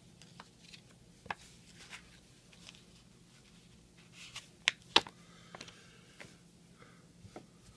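Faint handling noise of plastic coin flips in gloved hands: soft crinkles and scattered light clicks, with two sharper clicks close together about five seconds in.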